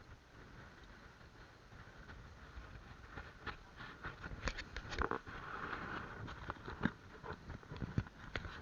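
Scattered taps and knocks from work on a fishing boat's deck, over a low steady rumble. The knocks start about three seconds in and cluster around the middle.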